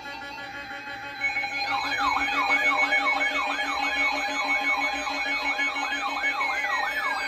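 A siren sounding a fast warble, its pitch sweeping up and down about two and a half times a second over steady tones, with a long falling glide starting near the end.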